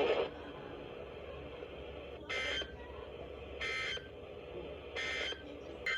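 Electronic beeps from an alert receiver or similar device: three short beeps about 1.4 seconds apart, then a shorter blip near the end, over a faint low hum.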